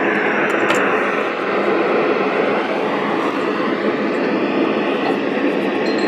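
Steady radio static from a weather-radio receiver, the hiss of a weak or missing signal, with a few faint clicks.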